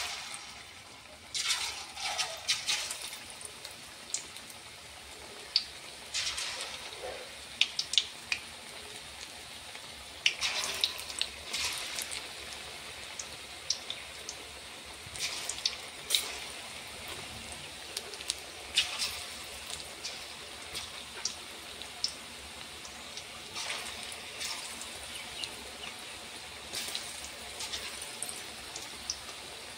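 Hot oil sizzling and crackling as battered ridge gourd fritters (janhi pakudi) deep-fry in a metal kadai. It starts suddenly as the first fritter goes in, with a fresh, louder burst of sizzling every four to five seconds as more pieces are dropped into the oil.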